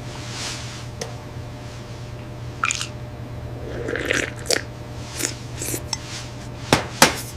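Steady low hum with a series of sharp clicks and short taps scattered through it, the two sharpest near the end.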